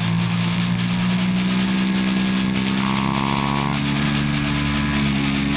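Sport motorcycle engine heard from onboard, running hard at high revs as the bike accelerates down a straight, its note rising slowly.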